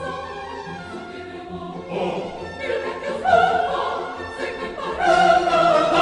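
Classical music with a choir singing over an orchestra, the held notes swelling louder in the second half.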